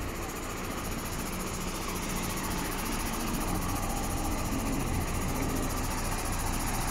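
Isuzu 4HK1 diesel engine of an ELF truck idling steadily, growing slightly louder.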